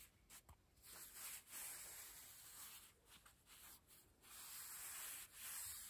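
Faint rustling of fingers rubbing and handling corduroy fabric, coming and going in short stretches.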